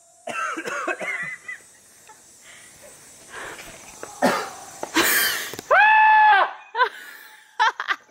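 People calling out and laughing, with a loud burst of breath-like noise about five seconds in, then one loud, held 'yahoo'-style call just before six and a half seconds, then short calls near the end. These are shouts sent out over a valley to draw back echoes or answering calls.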